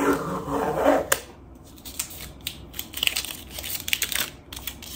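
Fingernails scratching and picking at a stuck sticker on a clear plastic storage container, the label crinkling and tearing in small bits with scattered clicks against the plastic. The sticker is not coming off cleanly.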